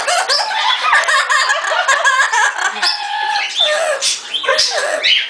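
Pet parrot vocalizing: continuous chattering and squawking calls with quick rises and falls in pitch.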